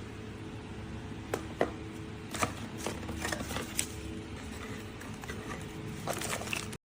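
A small cordless handheld car vacuum cleaner running with a steady hum, with scattered clicks and taps as it is handled.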